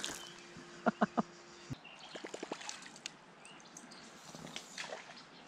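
Water dripping and trickling back onto the river surface just after a catfish's surface splash, with a few sharp clicks about a second in and scattered small ticks after.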